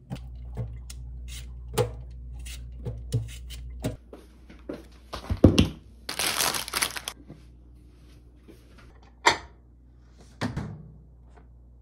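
Kitchen handling sounds: scattered light clicks and knocks over a low steady hum, a couple of heavy thunks about five seconds in, a rustling scrape lasting about a second, then a sharp click and a last knock near the end.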